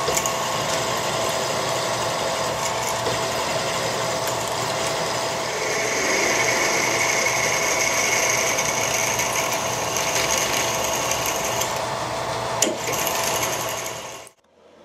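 Milling machine spindle running with a twist drill cutting into a metal block: a steady machining whir with a constant tone, joined for several seconds in the middle by a higher cutting whine. It cuts off suddenly near the end.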